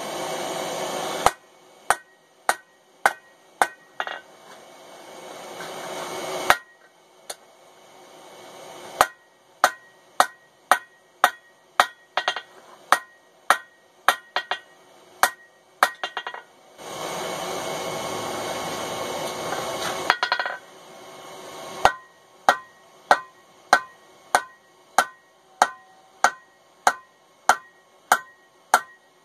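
Blacksmith's hammer striking red-hot mild steel bar stock on an anvil, forging the boss of a tong half. The blows come in runs of about two a second, each ringing briefly. Two stretches of steady rushing noise cut in, at the start and about two-thirds through.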